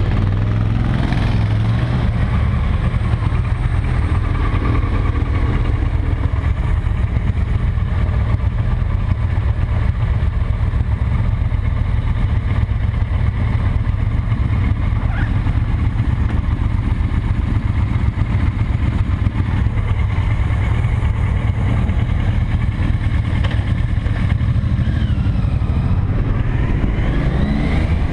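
Cruiser motorcycle engine running with a steady low rumble, heard from the rider's seat.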